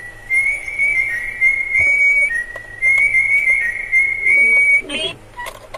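Electronic calling bell (doorbell) playing its beeping chime tune, two short phrases of high steady notes stepping up and down. The bell keeps repeating its tune and voice message on its own, a fault in which it will not stop until its battery is taken out.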